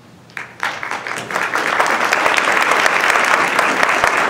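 Audience applauding, beginning about half a second in and swelling to full, steady clapping.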